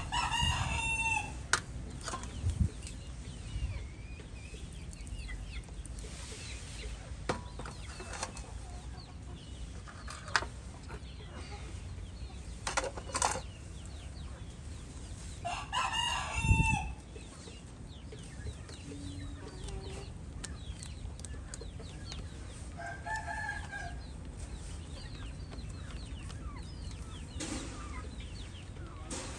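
Rooster crowing twice, each crow about a second and a half long, once at the start and again about halfway through. Chickens call and cluck in between, and there are scattered sharp clicks and scrapes.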